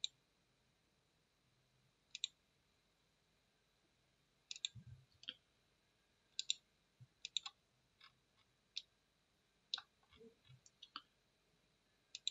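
Computer mouse buttons clicking: about a dozen short, sharp clicks spaced irregularly, several in quick pairs, with a faint low thump or two in between.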